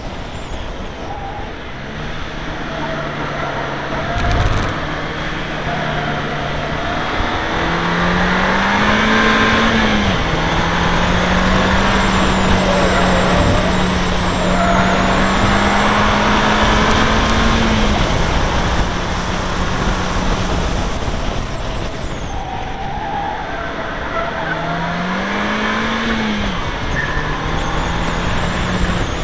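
Seat Leon Cupra R engine pulling hard on a race track, under a constant rush of wind and road noise. The revs climb and fall back about a third of the way in, and climb and fall back again near the end, as at gear changes.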